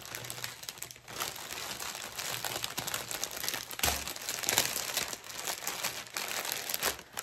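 Clear plastic packaging bag crinkling and rustling in continuous crackles as small plastic bags of diamond painting drills are handled and slid into it, with a brief pause about a second in.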